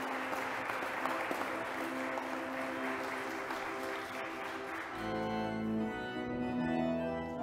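Applause from a congregation. About five seconds in, an organ comes in loudly with sustained chords and deep bass notes as the clapping fades.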